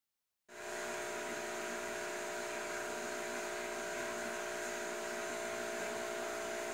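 Steady hum with several pitches held over an even hiss, starting about half a second in and keeping a constant level.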